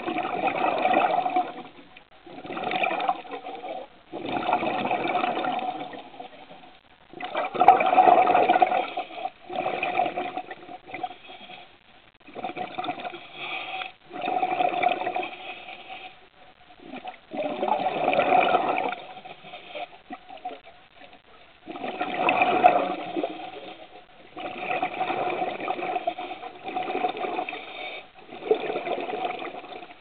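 A scuba diver's exhaled breath bubbling out of the regulator underwater: a gurgling rush of bubbles every two to three seconds, with quieter gaps between breaths.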